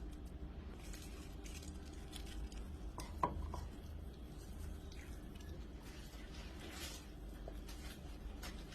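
Kitchen utensils and dishes knocking and scraping in light, irregular handling, with one sharper clink that rings briefly about three seconds in.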